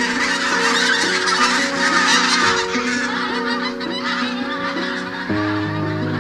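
A flock of geese honking, many calls overlapping, as the birds come down to land. Under it runs background music of sustained notes that shift in steps, with deeper notes coming in about five seconds in.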